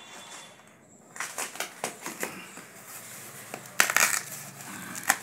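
Foam-sheet and packing-tape wrapping being pulled and torn off a parcel by hand: crackling and crinkling from about a second in, with a louder tear about four seconds in.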